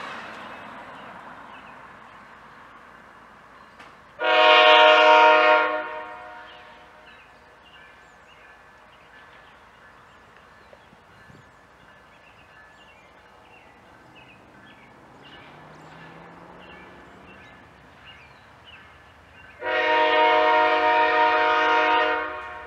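Diesel freight locomotive's air horn sounding two long blasts about fourteen seconds apart, the second slightly longer, as the train approaches.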